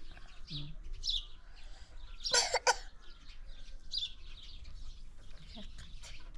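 Birds chirping in short, high, repeated calls, with one louder harsh double squawk about two and a half seconds in.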